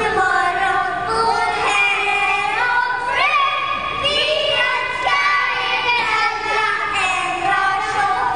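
Children's choir singing a song together, the young voices carrying a held, flowing melody.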